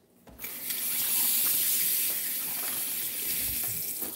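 A steady hissing rush that starts abruptly about half a second in and cuts off just before the end.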